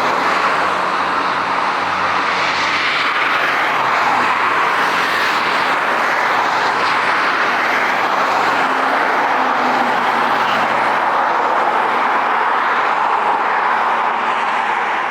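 Jet airliner engines running loud and steady, a broad rush of noise with a faint low hum that drifts slightly in pitch.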